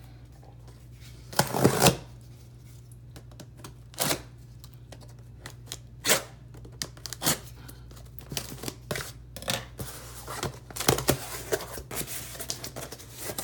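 A cardboard shipping box being opened by hand: irregular tearing, rustling and scraping, with scattered knocks. The loudest burst comes about a second and a half in, and another cluster comes near the end.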